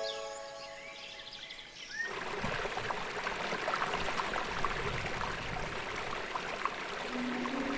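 Faint bird chirps, then about two seconds in the steady rush of flowing stream water cuts in abruptly and holds.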